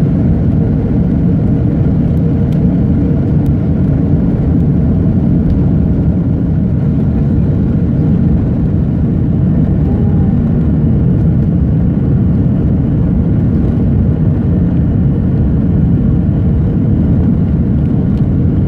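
Jet airliner's engines at takeoff power, heard from inside the passenger cabin: a loud, steady roar as the plane leaves the runway and climbs away.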